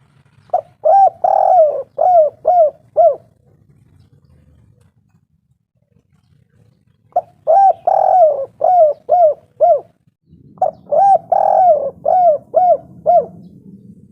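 Spotted dove cooing: three phrases, each a run of about five or six short notes with a longer note early on. After the first phrase there is a pause of about four seconds, then two more phrases follow close together.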